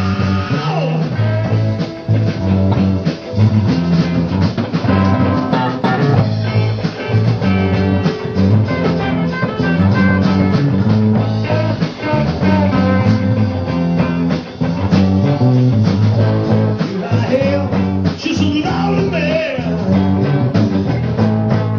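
Rock band playing live: electric guitar over a repeating bass-guitar line and drums.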